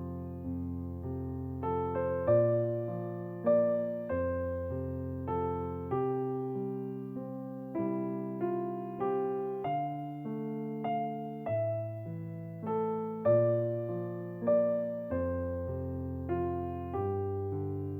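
Background music: a slow, gentle solo piano piece, single notes over soft sustained bass chords.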